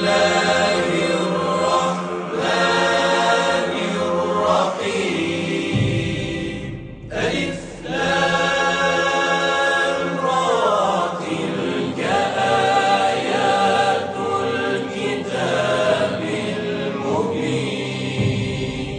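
Choral title music: voices singing long, sliding chant-like lines over a sustained low drone, with a brief lull about seven seconds in.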